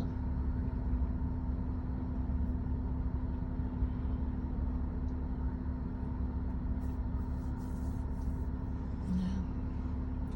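Steady low engine rumble with a constant hum, like a vehicle idling.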